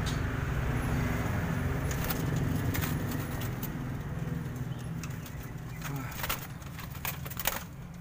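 Doves moving about in a wire-mesh aviary: several sharp clicks and taps and a few wing flaps, over a steady low hum that fades after about five seconds.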